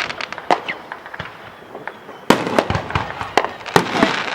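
Aerial fireworks going off: a spell of quick crackling pops, then, about two seconds in, a string of five or so sharp loud bangs, each with an echoing tail.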